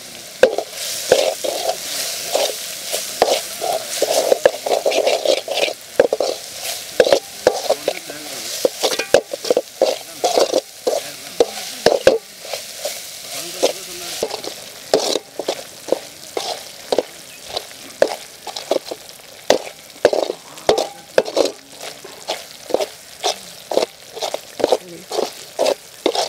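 Long metal perforated ladle scraping and knocking against a metal kadai as onion and chilli-powder masala is stirred, each stroke ringing the pan, with the masala sizzling as it fries. The strokes come quickly and irregularly all through.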